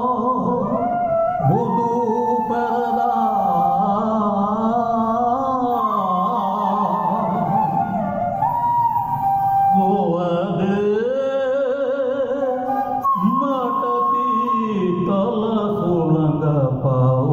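Elderly man singing solo in a chant-like melody, holding long notes that glide and waver, with short breaks between phrases.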